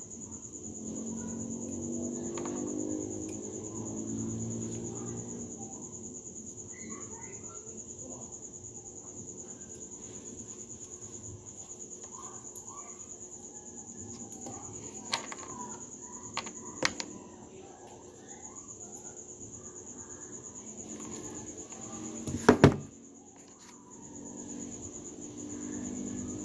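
Small clicks and taps of metal spinning-reel parts being handled, with one sharp knock about 22 seconds in. Under them runs a steady high-pitched insect trill.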